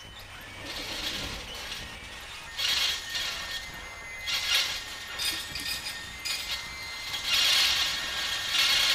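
Singer sewing machine running in short bursts of stitching, about six, with the longest and loudest near the end.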